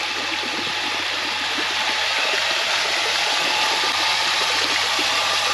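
Steady rush and splash of water from a pond fountain driven by a freshly started pump, running strong. Air in the line is taken to be what had kept the fountain from staying in place.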